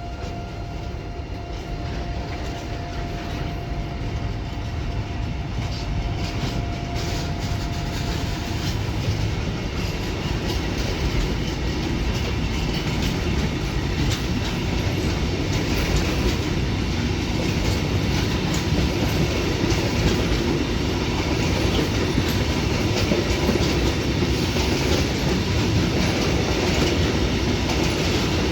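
A freight train hauled by an E494 electric locomotive pulls away and passes, its wheels clacking and rumbling, growing slowly louder. A steady whine is heard for the first few seconds, then stops about eight seconds in.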